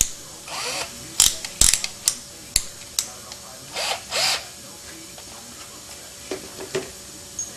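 Hand tools being handled: a run of sharp clicks, about six in three seconds, mixed with a couple of brief scraping rustles, then a few softer knocks near the end.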